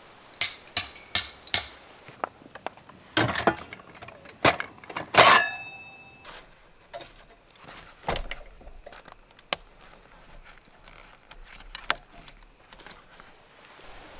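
Clatter of hard objects being handled: a run of light clicks and knocks, then one louder metallic clank a little past five seconds in that rings briefly, followed by scattered faint ticks.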